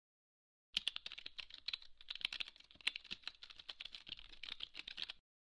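Computer keyboard typing: a quick, irregular run of key clicks that starts about three-quarters of a second in and stops shortly before the end.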